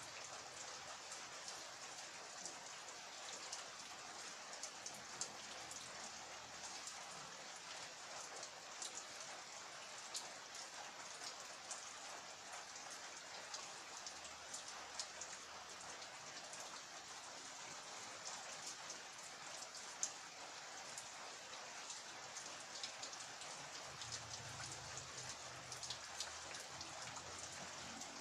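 Steady rain falling, an even hiss with many individual drops ticking sharply on a surface, a few louder drips standing out now and then.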